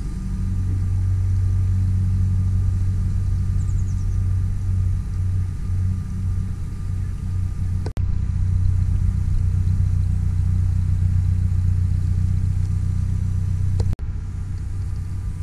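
A narrowboat's engine running steadily at low revs, a deep even rumble, broken by two brief dropouts in the recording about halfway and near the end.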